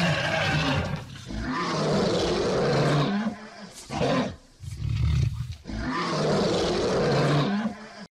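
Lions roaring and snarling in a run of long, harsh calls with short breaks between them.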